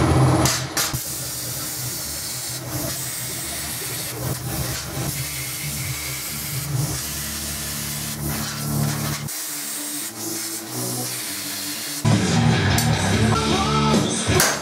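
Air plasma cutter (AuroraPRO AIRHOLD 40) hissing steadily as it cuts steel sheet, over background music. Near the end a few sharp hammer blows on steel.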